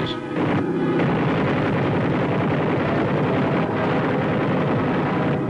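Wartime film soundtrack of a low-level air attack: aircraft engines and explosions blend into one dense, continuous din at a steady level.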